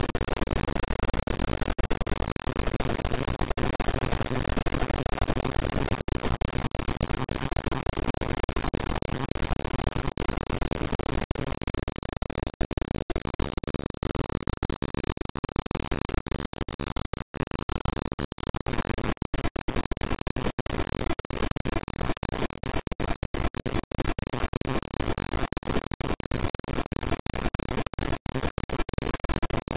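Glitch noise from a REAPER loop only a few milliseconds long, repeating a tiny slice of audio: a dense, harsh noise full of clicks and short dropouts. Its top end thins out for a few seconds in the middle.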